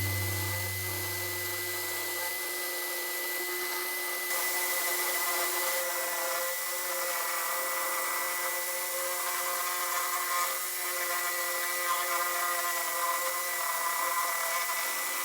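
Electric drill running steadily with a constant motor whine while its bit cuts sideways through wood. A low music note fades out over the first few seconds.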